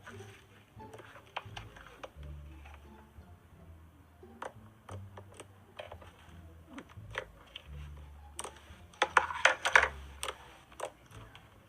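Slime being squeezed and pressed by hand: scattered sticky clicks and small pops, with a denser, louder run of crackling about nine seconds in.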